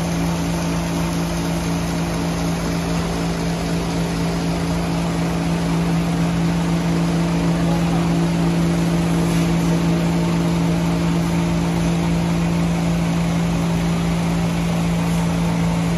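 Heavy machinery running steadily with a constant hum, holding one pitch with no revving or change in speed.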